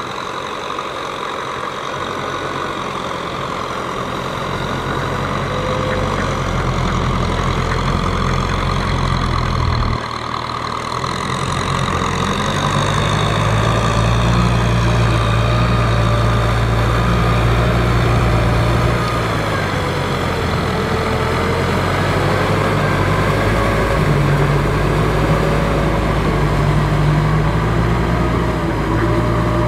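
Diesel farm tractor engine running steadily under load as it pulls a rear rotary tiller through flooded paddy soil. The engine note changes about a third of the way in and then runs louder and deeper.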